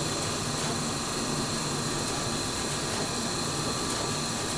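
Pick-and-place machine running: a steady mechanical whir and hiss with a constant high whine, and faint clicks as the placement head moves.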